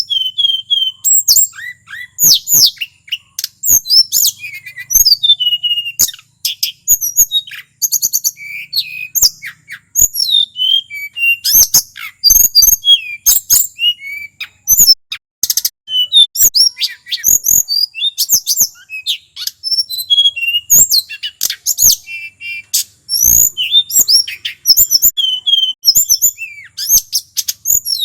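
Male tledekan gunung, a blue flycatcher, singing nonstop: a fast, varied run of high whistled notes and sharp chips with barely a pause.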